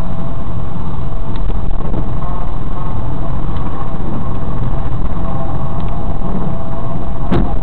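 Car driving, picked up by a dashcam's built-in microphone in the cabin: a steady, loud drone of engine and road noise with a constant hum, and one sharp click about seven seconds in.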